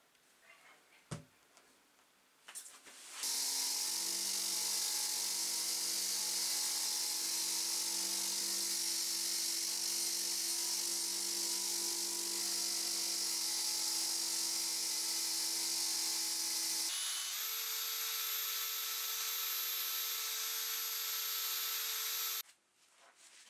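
Faint scraping of a hand wire brush on the hammer head, then about three seconds in a Villager bench grinder starts its wire wheel against the rusty steel hammer head, running steadily with a hum and a strong hiss. About 17 s in this gives way to a Bosch cordless drill spinning an attachment inside the hammer's handle eye, at a higher steady pitch with a thin high whine, which stops shortly before the end.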